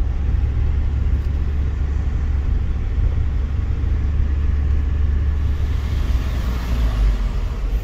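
Heavy camper van driving, heard from inside the cab: a steady low rumble of engine and road noise. About two-thirds of the way through, wind rushing in at an open side window grows louder.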